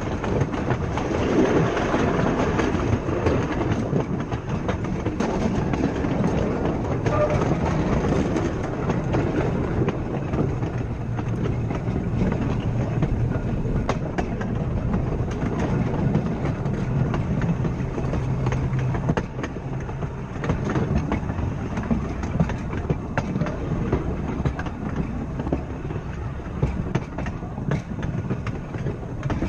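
Blackpool 'Boat' open-top tram running along the track: a steady rumble of steel wheels on rail, with clicks over the rail joints. A low hum is strongest through the middle.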